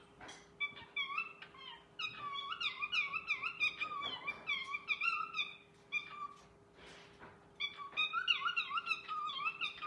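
Cockatiel chattering and whistling a fast warbling string of short up-and-down chirps. The chirping breaks off around the middle and starts again near the end.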